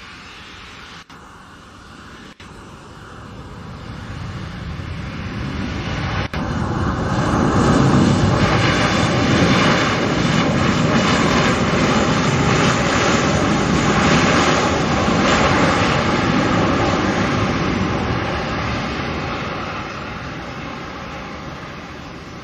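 Airbus A319's CFM56 turbofan jet engines running as the airliner lands and rolls out along the runway. The sound swells to a loud, steady peak a few seconds in, holds, then fades near the end.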